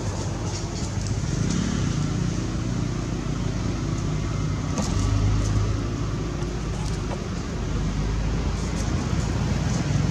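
A motor vehicle engine's steady low rumble, swelling slightly about halfway through.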